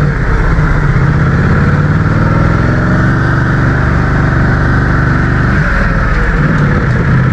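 Motorcycle engine running under way, its note steady and then changing pitch about five to six seconds in.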